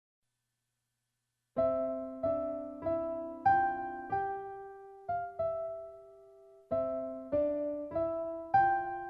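Piano-like keyboard music beginning after about a second and a half of silence: a slow melody of single struck notes that ring and fade, with a short phrase that ends on a longer held note and then repeats.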